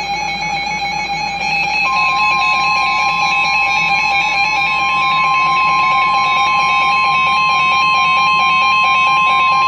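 NOAA Weather Radio warning alarm tone (1050 Hz) comes on about two seconds in and holds as one steady high tone, the signal that a new warning message is about to be broadcast. Background music plays underneath throughout.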